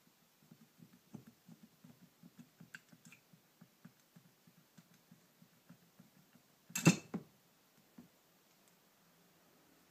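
Hand work on a motorcycle carburetor: a run of light, quick clicks, about four a second, then one sharp knock about seven seconds in, followed by two smaller ones.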